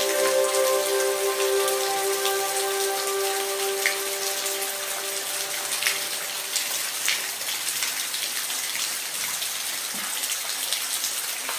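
Steady rain, an even hiss with scattered individual drop ticks. Soft held music notes sound under it and fade out by about halfway through.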